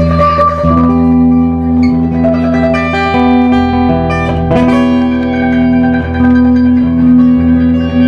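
Live acoustic string band playing an instrumental newgrass tune: upright bass, acoustic guitar and mandolin, with the bass notes strong and steady under the picked strings.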